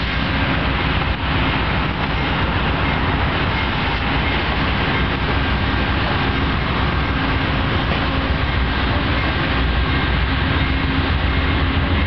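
Amtrak passenger coaches passing close alongside the platform: a steady, loud rush of wheels on rails with a heavy low rumble.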